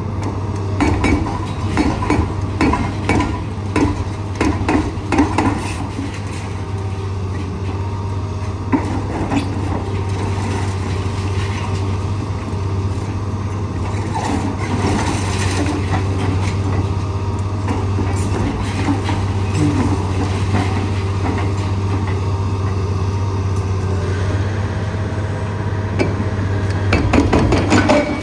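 Heavy hydraulic excavator (a Liebherr 954) running steadily with a low engine hum, under irregular knocks and clatter of demolition work. The clatter is densest for the first several seconds and picks up again near the end.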